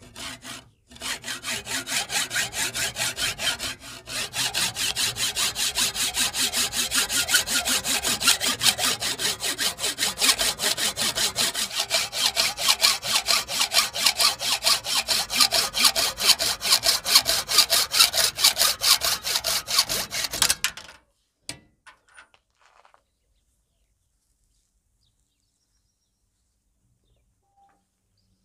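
Hacksaw cutting through a small brass bushing clamped in a bench vise: a steady run of quick back-and-forth strokes, with a short break about four seconds in. The sawing stops about twenty seconds in, leaving a few faint clicks and then near silence.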